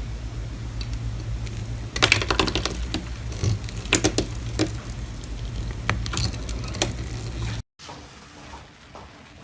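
Slime being pressed and squished by hand, giving irregular clusters of sharp clicks and crackles over a steady low hum. The sound cuts off abruptly near the end, then continues as quieter, sparser clicking.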